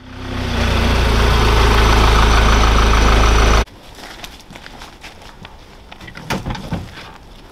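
A vehicle engine running steadily with a deep rumble. It fades in, then cuts off abruptly about three and a half seconds in. After it come quieter scattered knocks and rustles of hard gun cases and gear being handled.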